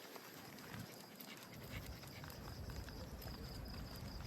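Faint sounds of a dog out on a walk, with small light ticks like steps. Near the end a faint high insect trill comes in.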